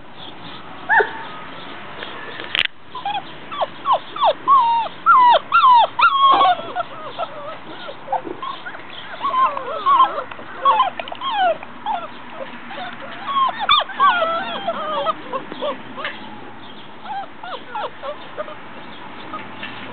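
A litter of mastiff puppies whining: many short, overlapping high cries that mostly fall in pitch, busiest through the middle.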